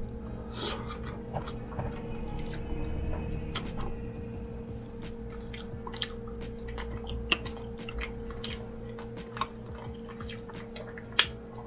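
Close-up chewing of rotisserie chicken skin and meat, with scattered wet mouth smacks and clicks, one sharper click near the end, over a faint steady hum.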